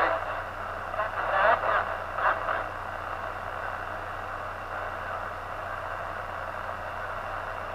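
CB radio receiver tuned to 27.285 MHz (channel 28) playing static while it listens for a distant skip station. Faint, broken voices come through the static in the first two seconds or so, then only a steady hiss over a low hum.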